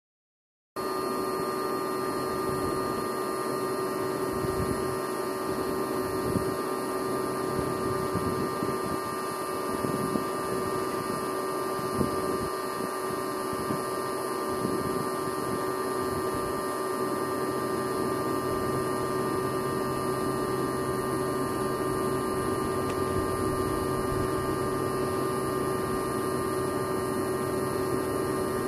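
A steady hum made of several fixed tones over a faint hiss, starting suddenly just under a second in, with a few faint low knocks.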